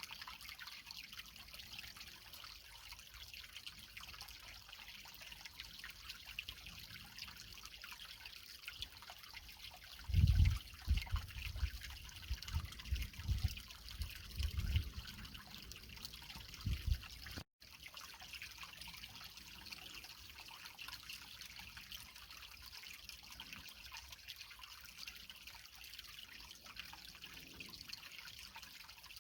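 Creek water trickling and splashing over rocks in a steady hiss. Between about ten and seventeen seconds in, a series of low rumbles sits under it, and the sound drops out for an instant just after.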